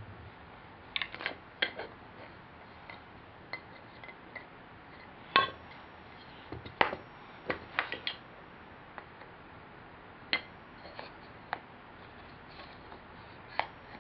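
Wooden toy train track pieces clacking and knocking together as they are handled and fitted, in scattered sharp clicks with pauses of a few seconds between clusters.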